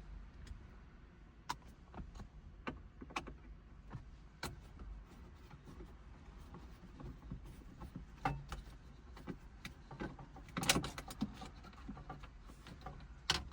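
Scattered small clicks and taps of a Phillips screwdriver and screws being worked out of a car head unit's mounting, with a louder cluster of clatter about eleven seconds in.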